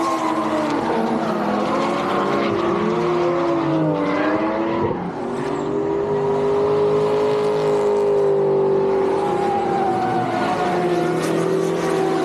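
Several drift cars' engines revving hard through a tandem slide, the pitch rising and falling as the throttle is worked, with a brief drop about five seconds in before the revs hold steady. Tyre squeal runs under the engines.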